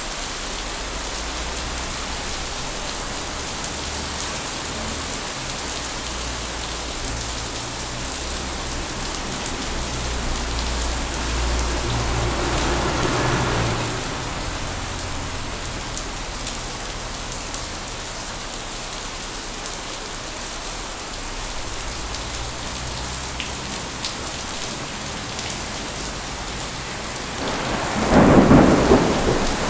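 Steady rain with a low roll of thunder swelling and dying away around the middle, and a louder, sharper thunderclap near the end.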